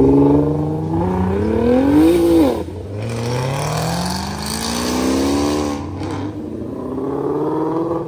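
Performance cars accelerating away one after another, each engine's pitch climbing and then dropping sharply at a gear change. The shifts come about two and a half seconds in and again near six seconds, and another engine starts revving up near the end.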